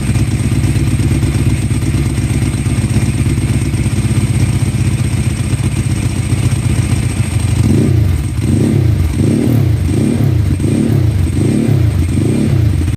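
2003 Ducati 999S L-twin engine running through Termignoni exhaust cans, a steady idle that from about eight seconds in takes on a regular rise and fall, a little under twice a second.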